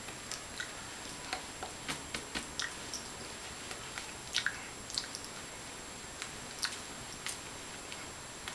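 Faint, irregular clicks and smacks, about a dozen scattered through, from a person signing: hands meeting and the mouth moving. They sit over a steady hiss with a thin high whine.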